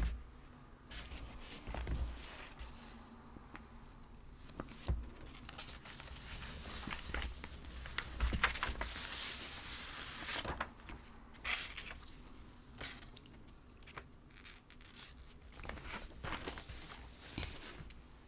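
Sheets of paper being handled and shuffled, crinkling and rustling with scattered soft clicks and taps, with a longer sweep of rustling about nine seconds in. Blouse fabric rustles as the arm moves.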